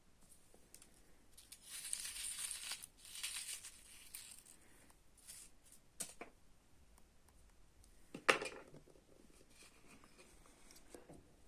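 Crinkling, rustling handling noise for about two seconds, then a few light clicks and one sharp knock about eight seconds in.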